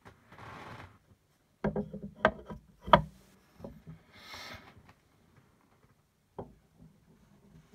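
Handling of heavy statue parts as a torso is taken off and swapped: a quick run of sharp knocks and clicks about two to three seconds in, the loudest near the three-second mark, and another lone knock later. There are two short hissing rustles, one at the start and one about four seconds in.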